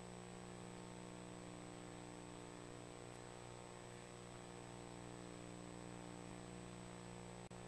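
Near silence: a steady electrical mains hum with a faint high whine and hiss, with a momentary dropout near the end.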